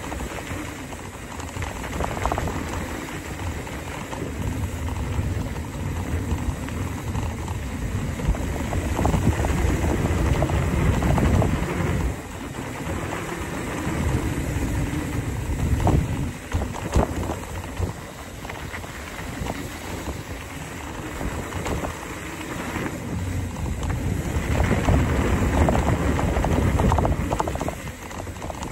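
Wind rushing over the microphone and tyres rolling over a dirt trail during a fast mountain-bike descent, with scattered knocks and rattles from bumps. The rush swells and eases as the speed changes, loudest about a third of the way in and again near the end.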